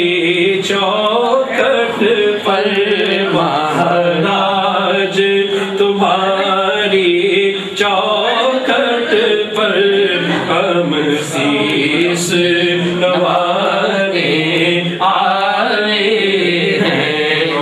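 Manqabat, a Sufi devotional song, sung continuously over a steady held drone.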